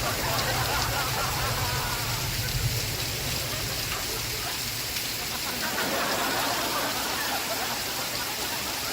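Steady rain falling, an even hiss, with faint television sitcom sound underneath.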